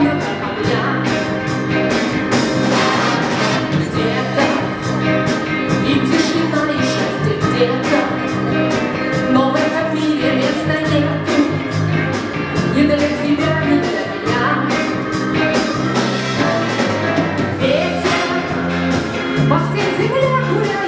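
A big-band estrada orchestra playing live with a steady bass line and drum beat, and a woman singing the lead.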